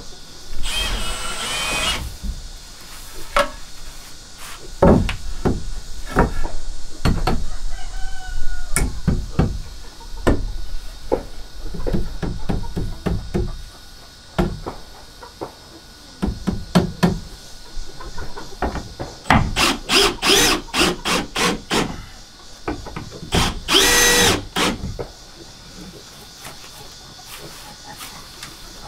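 Cordless drill driving screws into wooden boards in several short whirring bursts, with knocks and clatter of wood being handled in between.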